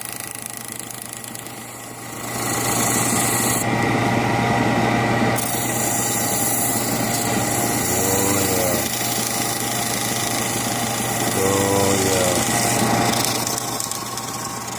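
Wood lathe motor running with a steady hum while sandpaper rubs against the spinning wooden beating stick. The rasping gets louder about two seconds in as the paper is pressed on.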